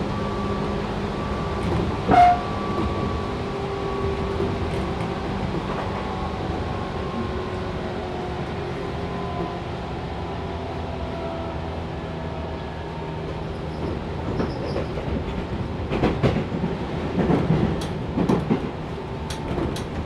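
Tobu 6050 series resistance-control electric train running at speed, heard inside the motor car: a steady running noise with the even hum of the TM-63B traction motors and gears, and a sharp clank about two seconds in. Near the end the wheels knock and rattle over rail joints.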